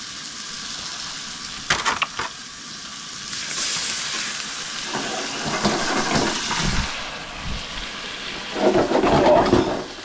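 Fish fillets sizzling in a frying pan on a portable gas burner. A few sharp clicks come about two seconds in, and louder swells of rushing noise come in the middle and near the end.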